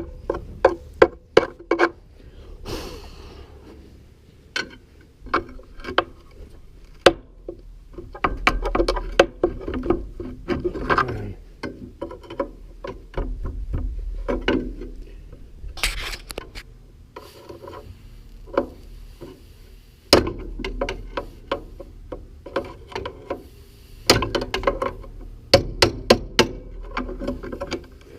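Irregular metallic knocks, clicks and scraping from hand tools working at a seized, rusted-on bearing on a feed wagon shaft, with two short hissing bursts.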